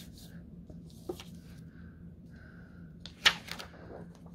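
A flat plastic board rubbed over computer paper laid on a slab of polymer clay, soft scraping strokes that smooth the seams between pieced cane slices, then a single sharp clack about three seconds in as the board and paper are handled.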